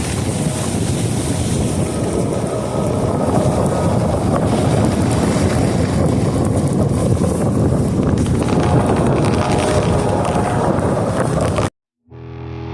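Steady rush of road and wind noise from a car driving through a snowstorm, with no talk over it; it cuts off suddenly near the end.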